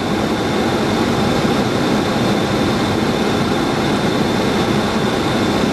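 Steady rushing noise inside a Boeing 737-700 on approach: airflow and the hum of its CFM56 jet engines, even throughout, with a faint high steady tone above it.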